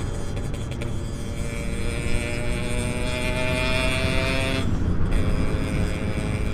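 Yamaha RX-King 135cc two-stroke single-cylinder engine running under way, its pitch climbing steadily as it accelerates, then a brief drop at about four and a half seconds, as at a gear change, before it pulls on again, over a rough low rumble of wind on the microphone.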